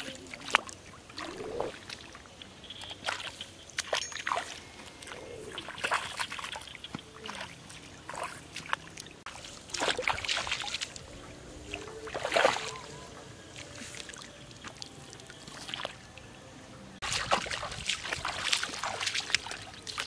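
Bare feet wading through shallow, muddy paddy water, with irregular sloshing steps and splashes. The splashing grows busier and louder in the last few seconds.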